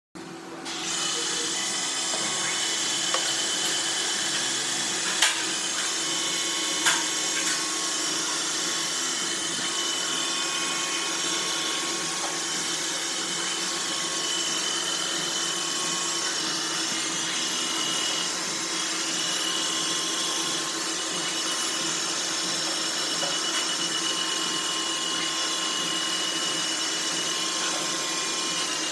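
Wire-cut EDM machine running with a steady mechanical hum and hiss, with two sharp clicks about five and seven seconds in.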